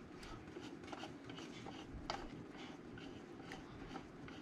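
Faint clicks and light metal rubbing as a small dummy load is screwed onto the wattmeter's coaxial output connector, with one sharper click about two seconds in.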